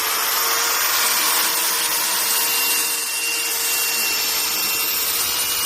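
Electric tube polisher running steadily at full speed: a high motor whine over a broad abrasive hiss.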